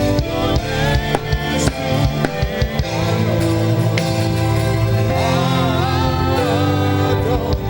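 Live gospel worship band playing sustained chords with a drum kit, drum strikes marking the beat in the first few seconds, and a wavering melodic lead that rises and bends from about five seconds in.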